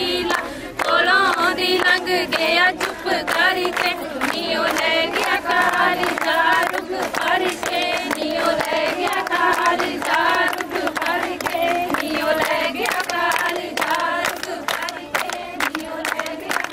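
A group of women singing a Punjabi folk song together, with many sharp hand claps running through it.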